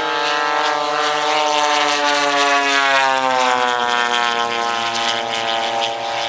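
Engine and propeller of a large-scale radio-controlled Bearcat or Corsair warbird model flying past. The engine note is a steady drone that slowly falls in pitch as the model goes by, dropping a step lower about four seconds in.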